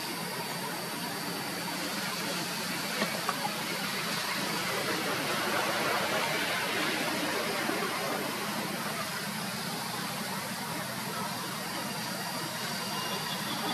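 Steady outdoor background noise, an even hiss with a few faint steady high tones, swelling a little midway, with a few faint clicks about three seconds in.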